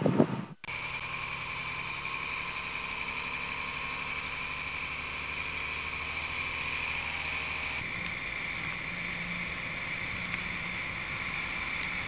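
Snowplow truck driving, a steady engine drone with a constant high whine, picked up by a camera mounted outside on the truck. It starts suddenly about half a second in.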